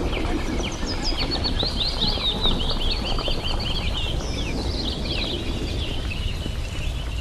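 Small songbirds chirping and twittering in quick, overlapping series, busiest about two to five seconds in, over a steady low rumble.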